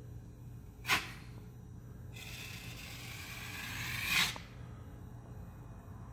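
Small putty knife scraping joint compound over drywall: one short swipe about a second in, then a longer stroke lasting about two seconds that grows louder and ends sharply.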